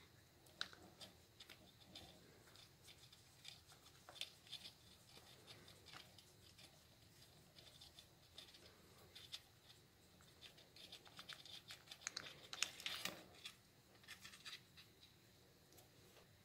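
Faint clicks and scrapes of hands working an outboard's ignition coil pack and its mounting bolt loose, with a busier run of scraping about three-quarters of the way through.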